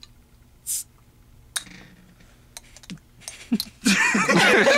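Small clicks and a couple of short hisses from hands working at the cap of a glass soda bottle. Loud laughter and voices break in near the end.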